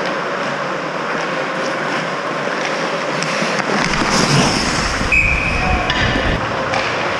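Ice hockey play around the goal: skates scraping and carving the ice and sticks clattering in the rink, with a short high steady tone about five seconds in.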